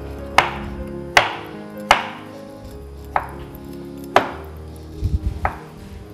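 Chef's knife slicing through an avocado and striking a wooden cutting board: about six sharp knocks, roughly one a second, with a few duller thumps near the end.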